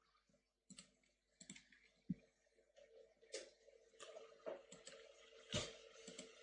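Faint, scattered computer mouse clicks: a few single clicks, growing busier in the second half with one louder click.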